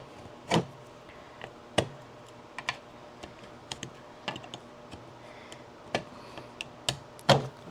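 Irregular sharp clicks and snaps of 3D-printed plastic as tree supports are pried and broken off the printed parts, the loudest snaps about half a second in, just under two seconds in and near the end.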